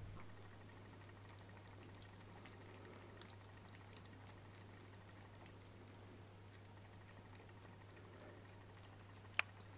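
Faint, scattered wet chewing and licking ticks from cats eating food off a plate, with one sharp click near the end.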